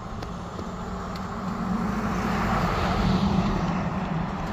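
A pickup truck driving past, its engine and tyre noise swelling to a peak about three seconds in and then fading as it moves away.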